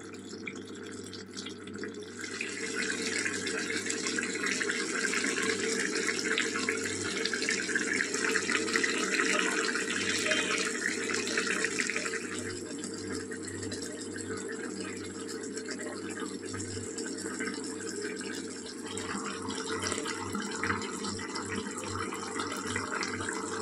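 Chicken curry gravy bubbling and sizzling in a pan on the stove: a steady hiss, louder from about two seconds in until about halfway through.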